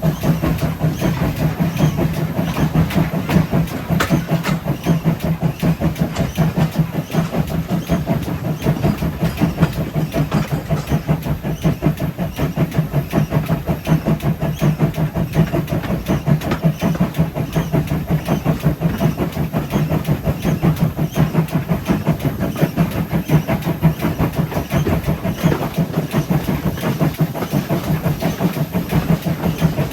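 GWR 57xx-class pannier tank steam locomotive 7754 running under way, its beats coming in a fast, even rhythm.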